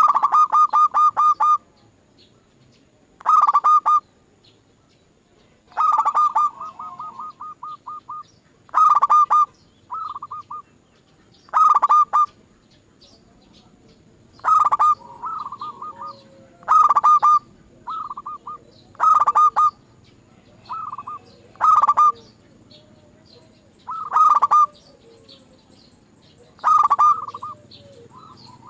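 Zebra dove (perkutut) cooing: short bouts of quick staccato coos, about a dozen, each a second or so long and roughly two to three seconds apart, with softer runs of coos between the loud bouts.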